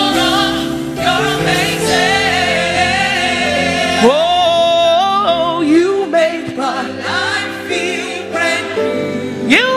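Live gospel worship music: a lead voice sings long sliding, wavering lines over a band and backing singers.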